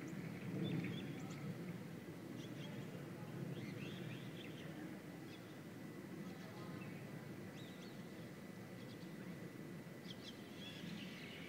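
Faint outdoor ambience: small birds chirping now and then over a low, steady background rumble, with a thin steady high tone.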